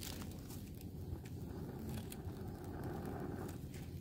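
Steady low rumble with a few faint, scattered crackles and ticks from a small wood fire burning under drink cans on a wire grill.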